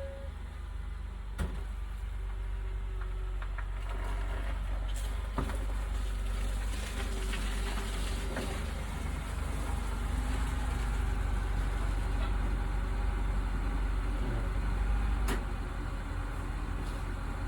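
Car engine idling steadily, a low rumble, with a few sharp clicks and knocks over it.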